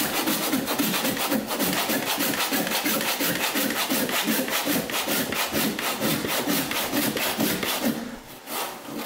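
Stanley handsaw cutting into an oak joist in quick, even back-and-forth strokes that stop about eight seconds in. The saw is blunt, so the cut goes slowly by brute force.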